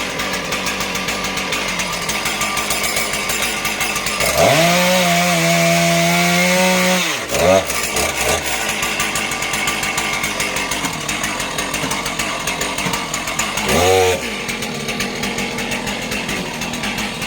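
Chainsaw running at idle. About four seconds in it is revved up to high speed and held for about three seconds, then dropped back, followed by two quick throttle blips. It is revved briefly once more about two-thirds of the way through.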